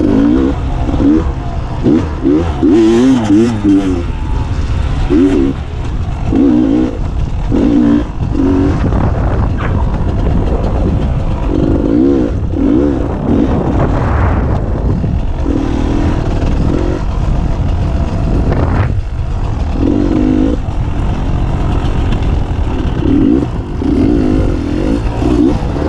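Beta 300 RR two-stroke enduro motorcycle engine revving up and dropping back in short, repeated bursts while being ridden on rough trail, over a steady low rumble. Two sharp knocks stand out, about a third and two thirds of the way through.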